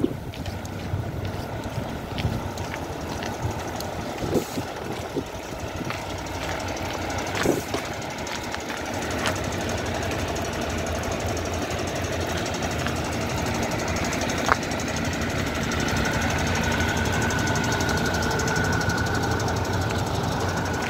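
Scania K400EB coach's 13-litre inline-six diesel idling with a steady low rumble, louder close to the rear engine compartment. A steady high whine joins near the end, with a few sharp clicks along the way.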